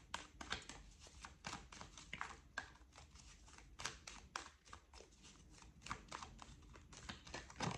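A deck of oracle cards being shuffled by hand: a quick, irregular run of soft card clicks and flicks.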